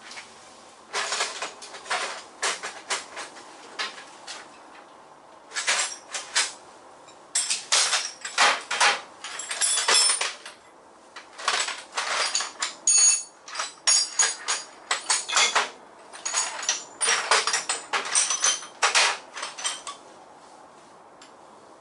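MIG welder tacking steel body panels: a long run of short crackling bursts, each under a second, with brief pauses between.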